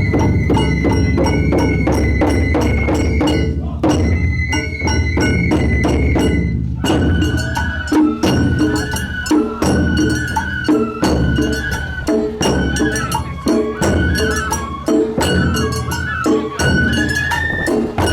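Japanese festival music (matsuri bayashi): fast, dense drum beats and metallic clanging under a high bamboo flute, whose held note turns into a moving melody about halfway through.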